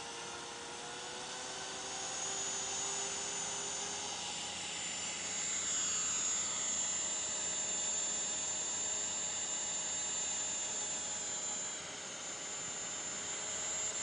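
Align T-Rex 500 electric RC helicopter spooling up and climbing away, its rotor noise growing louder about two seconds in and again a few seconds later, with a steady high-pitched whine over it. The main-blade stickers give the rotor an odd sound.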